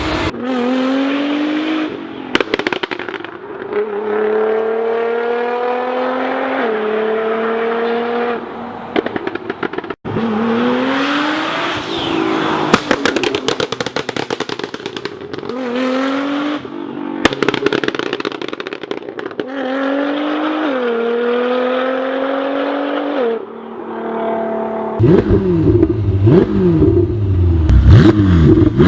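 Performance car exhausts in a string of short clips: engines pulling hard with rising pitch and quick upshifts, with bursts of rapid crackles and pops on the overrun between pulls. Near the end an engine is revved in quick blips.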